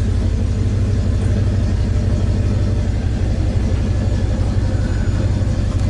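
Pickup truck engine running at low speed, a steady low note, as the truck creeps forward at the driver's pace.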